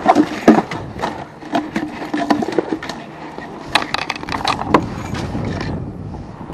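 Rattling and knocking as a wire-mesh fish basket holding a freshly caught trout is handled against a plastic cooler and the boat's hull. The clicks and knocks come in irregular clusters and are loudest in the first second.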